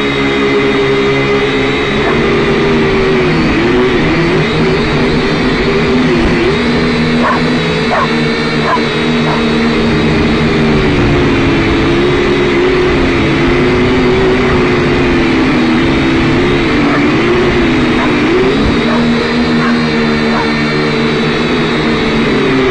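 Syma X5C quadcopter's small electric motors and propellers whining in flight, the pitch rising and falling repeatedly as the throttle changes. A few light clicks come a third of the way in.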